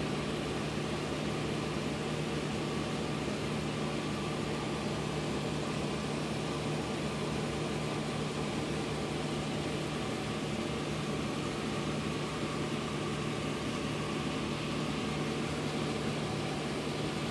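Steady machine hum with an even hiss, unchanging throughout: room background noise of the kind a running air conditioner or fan makes.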